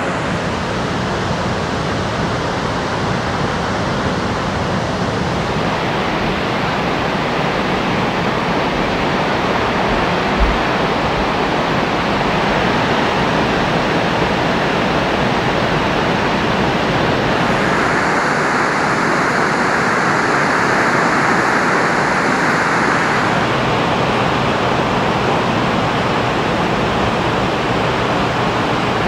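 Steady roar of a large waterfall's rushing water, swelling a little for several seconds midway through.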